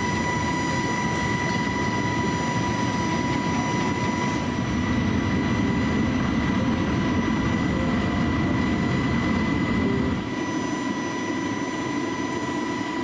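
Steady, deep rumble of a 140 m cargo ship's hull sliding down the launching ways into the sea, easing off about ten seconds in. A steady high tone sounds throughout.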